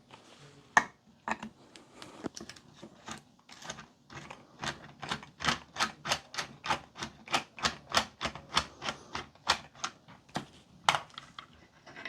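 Screwdriver turning out a Mosin-Nagant rifle's action screw, a sharp click at each turn. The clicks come scattered at first, then settle into an even run of about three a second, with a louder click near the end.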